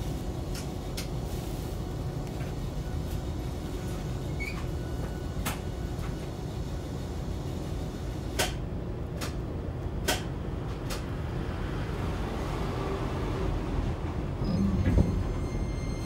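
Hiroden 5100-series tram, car 5108, running, heard from inside the car: a steady low rumble of wheels on rail, with scattered sharp clicks and a louder low bump near the end.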